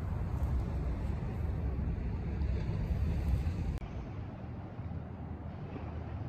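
Steady low rumble of a boat's engine under way, with wind noise on the microphone. The deepest part of the rumble cuts off suddenly about four seconds in.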